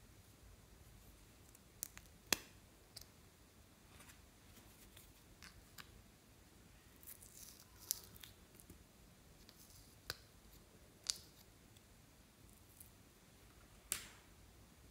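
Sparse, sharp clicks and taps of a plastic eyeshadow case and plastic spatula being handled, the loudest about two seconds in, with soft scratchy scraping around the middle as the pressed eyeshadow is dug out.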